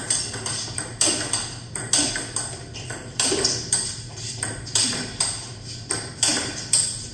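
Table tennis rally: the celluloid ball clicking off bats and the table, alternating at about two hits a second.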